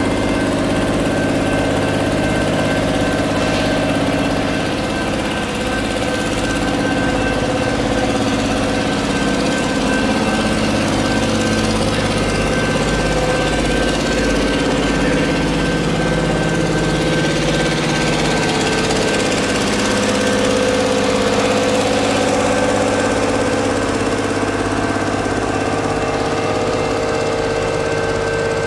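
Engine running steadily as a heavy Schnabel railcar train rolls slowly past, with a constant thin high tone above it.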